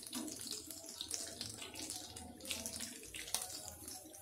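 Hot oil sizzling and crackling in a steady rush around potato-and-egg chops deep-frying in a pan, as a wire skimmer lifts them out. A single sharp click a little past three seconds in.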